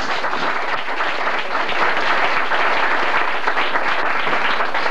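Audience applauding: many people clapping steadily as a speaker is called to the stage.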